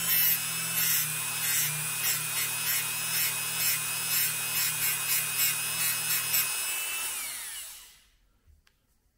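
Rotary tool spinning a thin abrasive cut-off disc, grinding the end of a piece of model railroad rail to its angle in short touches about twice a second. The tool is switched off about six and a half seconds in and its whine falls in pitch as the disc winds down.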